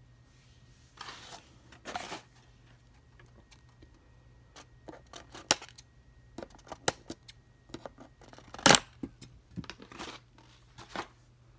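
Plastic toy figure and its cardboard packaging insert being handled: two brief scrapes in the first two seconds, then scattered clicks and snaps, the loudest about nine seconds in.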